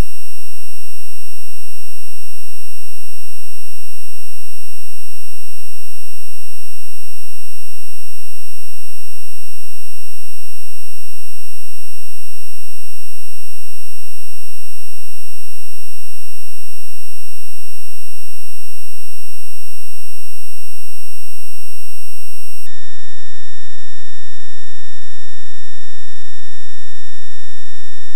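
A music track sped up to an extreme tempo, so that its notes blur into a very loud, steady electronic drone made of many fixed tones sounding at once. About 22 seconds in, the set of tones changes abruptly to a new one and then holds steady again.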